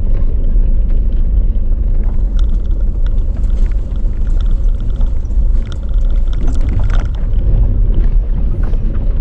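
Steady low rumble of a car rolling slowly over a rough, rocky landslide road, with scattered small crunches and ticks of gravel under the tyres.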